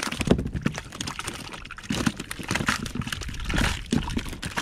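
Wet cast net being handled after a throw: water dripping and splashing, with many irregular small clicks and knocks.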